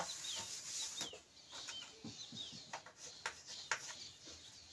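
A cloth wiping chalk off a blackboard: faint, irregular rubbing strokes and light knocks. Birds chirp in short falling notes in the background.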